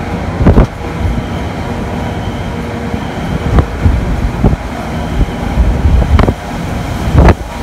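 Typhoon wind at a high-rise window during landfall: a loud, gusting rush with a deep rumble, broken by a few sharp knocks.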